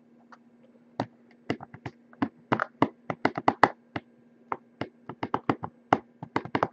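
Fingers tapping on a cardboard trading-card box: irregular sharp taps, a few a second, starting about a second in.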